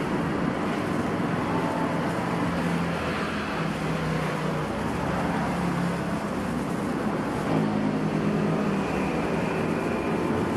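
Steady road traffic noise, with vehicle engines humming past that come and go.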